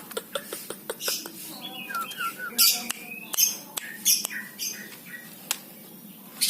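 A caged trucuk bulbul calling with short chirps and squawks among sharp clicks and brief hissing bursts.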